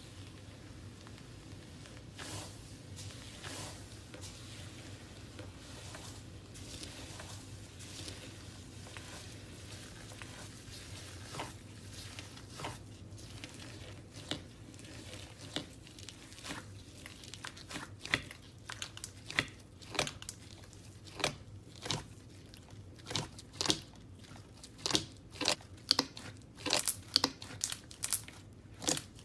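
Slime being handled, making crinkling and crackling pops. They are sparse at first and build in the second half into a quick run of sharp crackles, over a low steady hum.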